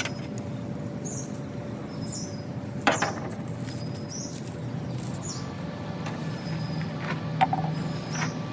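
Small birds chirping in short high calls about once a second, over a steady low background hum. Two sharp knocks stand out, about three seconds in and again near the end.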